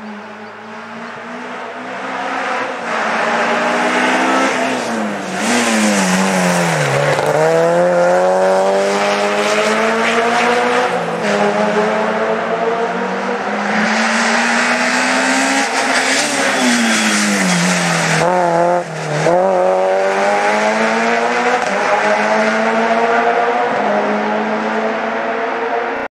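Rally car engine driven hard, revving high through the gears. The revs fall steeply twice, about five and sixteen seconds in, as the car slows and shifts down, then climb again each time as it accelerates away.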